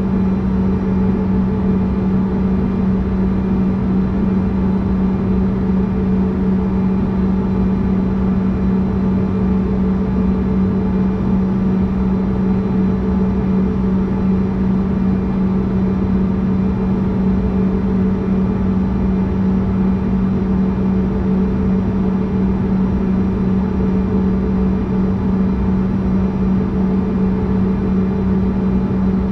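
Steady cabin hum of a CRJ-200 regional jet idling on the ground, its rear-mounted GE CF34 turbofans and air systems giving a constant low drone with a strong steady tone, heard from inside the cabin.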